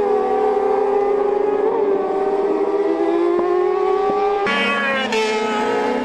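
Racing motorcycle engine at high revs, its pitch sliding slowly down for about four and a half seconds with a couple of brief blips, then jumping abruptly to a higher note that climbs slowly.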